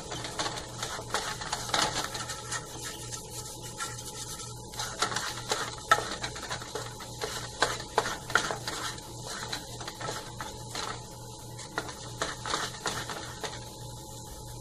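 Wooden spatula scraping and knocking against a nonstick kadhai as thick peda dough is stirred and pressed around the pan without pause, in irregular scrapes and taps over a steady low hum. The mixture has cooked to a soft dough that no longer sticks to the pan.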